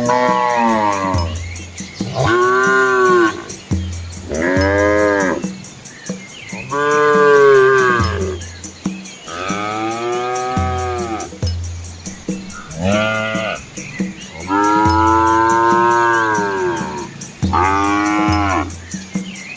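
Cows mooing again and again: about eight calls, each rising and then falling in pitch, some short and some drawn out for a couple of seconds.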